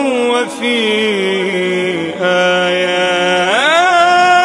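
Male voice singing an Arabic Islamic tawshih (devotional chant) in a melismatic maqam style, drawing out the syllables 'wa fi' over long, wavering held notes. About halfway in, a lower steady voice holds a note beneath, and near the end the lead voice sweeps up in pitch.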